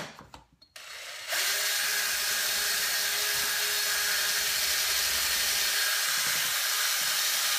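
Cordless drill running at a steady speed, boring into the wall. It starts with a short, softer whirr, comes up to full speed about a second in, and holds an even pitch from then on.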